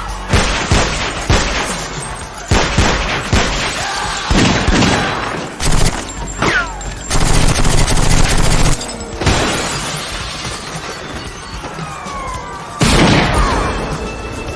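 Film gunfight sound effects: gunshots in irregular volleys with glass shattering, over background music. There is a dense, loud stretch of shots and breaking glass about halfway through, and another loud burst near the end.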